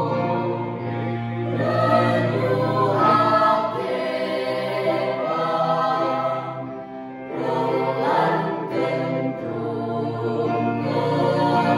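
A mixed teenage choir singing in several parts, with sustained swelling chords over a steady low note.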